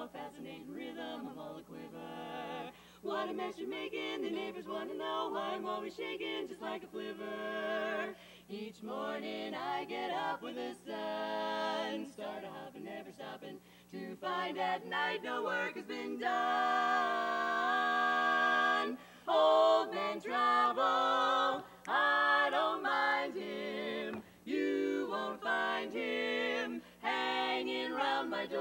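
Women's barbershop quartet (tenor, lead, baritone and bass) singing a cappella in four-part close harmony, in short rhythmic phrases, with a long held chord about sixteen seconds in.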